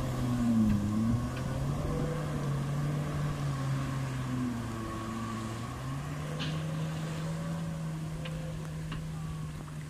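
Steady drone of a motorized watercraft's engine out on the water, slowly fading, its pitch stepping up slightly about six seconds in.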